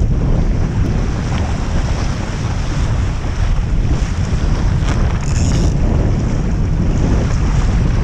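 Wind buffeting the microphone with a heavy rumble, over water rushing and splashing along the hull of a Topper Topaz sailing dinghy under way, with a brief higher hiss about five seconds in.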